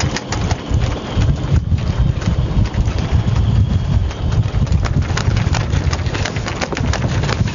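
Wind rumbling and buffeting on the microphone aboard a small sailing yacht, with many irregular sharp clicks and knocks.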